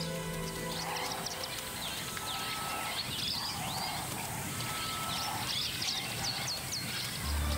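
Soft background music fades out about a second in, leaving wild bush ambience with many short bird chirps and whistles.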